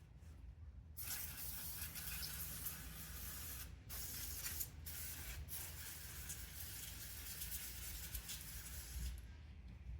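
Brake cleaner hissing from a pressurized sprayer: one long spray starting about a second in, broken by three short pauses, and tailing off near the end. The sprayer is running short of air pressure.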